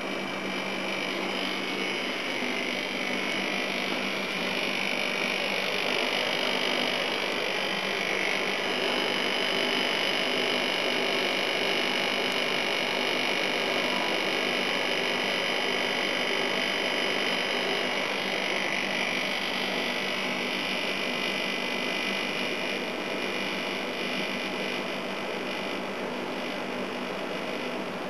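Air-conditioning unit running with a steady compressor hum under an even fan hiss. The owner takes the compressor for being a little dry, its oil not yet back where it should be.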